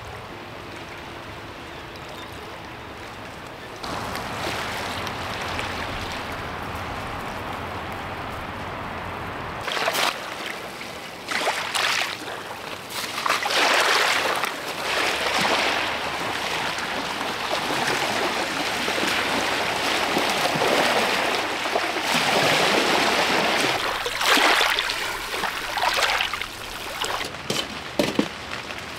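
Small waves washing in over a pebble beach, surging one after another. A few short sharp clicks near the end.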